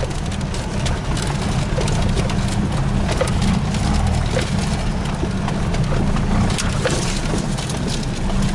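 Off-road vehicle's engine running steadily at low speed, heard from inside the cab, with frequent small knocks and rattles as the vehicle bumps along a rough dirt track.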